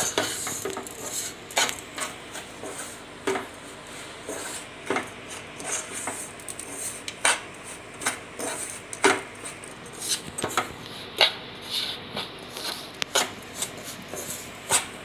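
A steel slotted spoon stirring and scraping granulated sugar around a small saucepan, with irregular metal clinks against the pan's sides and bottom about once or twice a second. The sugar is being heated dry with a little ghee and is clumping and starting to brown as it begins to melt.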